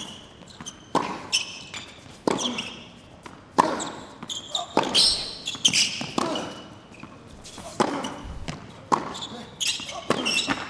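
Tennis rally on a hard court: sharp pops of racquets striking the ball and the ball bouncing, about one a second, with short player grunts on some of the shots.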